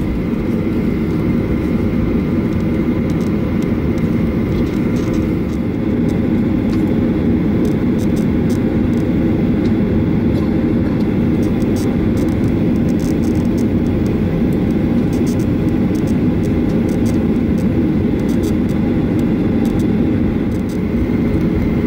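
Cabin noise inside a Boeing 737-800 taxiing: its CFM56-7B engines at idle give a steady low rumble, with a faint steady whine above it.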